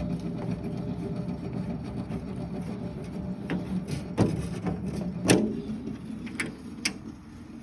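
Sawmill's small gasoline engine running steadily, then fading in the second half, with several sharp metallic knocks and clicks.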